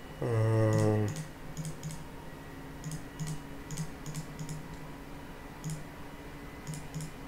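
Computer mouse button clicks, often in quick press-and-release pairs at an irregular pace, as brush dots are stamped one by one in a digital painting program. Near the start there is a short hummed voice sound about a second long.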